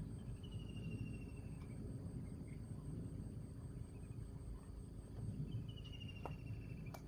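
Steady low rumbling background with a faint, steady, high insect drone, and a short high trill falling slightly in pitch twice, once near the start and once near the end.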